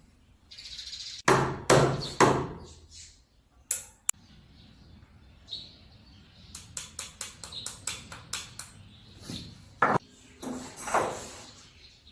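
Hand-tool work on a saw: three sharp knocks close together about a second in, then a fast, even run of short, light strokes, about five a second, for a couple of seconds, and a few more knocks near the end.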